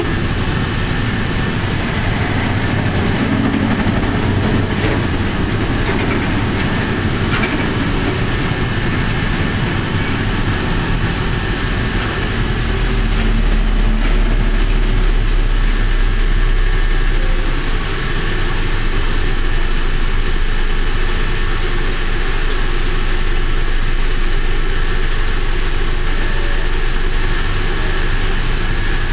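Steady rumble of road and wind noise from a vehicle moving in heavy truck traffic. A deeper, louder rumble swells about halfway through while passing close alongside a container truck's empty trailer chassis.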